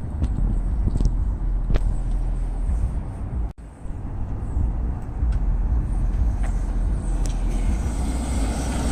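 Car on the move: steady low rumble of the wheels and road, with a few faint clicks here and there, recorded to capture a strange noise from a wheel. The sound cuts out briefly about three and a half seconds in.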